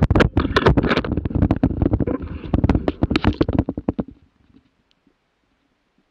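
Close, dense scraping, crackling and knocking of twigs and snowy brush rubbing against the microphone as the camera moves through undergrowth. It stops about four seconds in.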